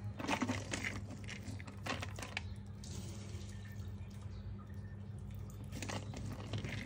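Handfuls of damp red sticky rice dropped onto cabbage leaves in a metal pot: soft crackly patter in three bursts, at the start, about two seconds in, and near the end, over a steady low hum.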